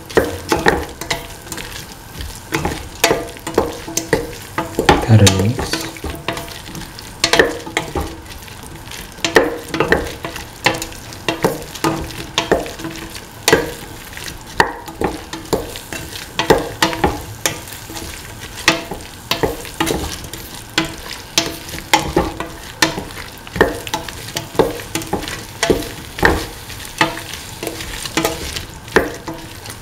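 A spatula scraping and knocking against a stainless steel pan, about one stroke a second, as okra, winter melon, tomato and shallots are sautéed. A quiet sizzle runs underneath, and one louder knock comes about five seconds in.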